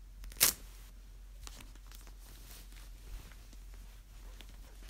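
Doll clothes being handled: fabric rustling and small clicks, with one short, sharp noise, the loudest sound, about half a second in.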